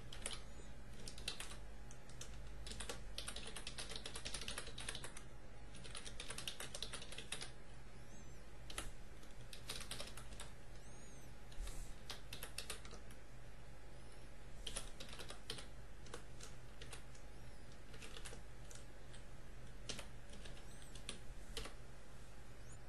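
Typing on a computer keyboard: quick runs of keystrokes for about the first seven seconds, then sparser, scattered key presses.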